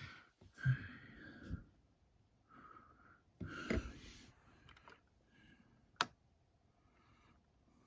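Quiet handling of an alarm clock: a few soft breaths or rustles, then one sharp click about six seconds in, like a button being pressed.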